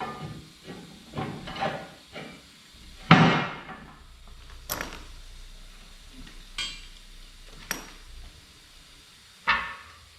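Irregular metal clanks and knocks from steel parts of a crusher jaw being worked on, a cluster in the first couple of seconds, the loudest about three seconds in, then four single sharp clanks spread through the rest.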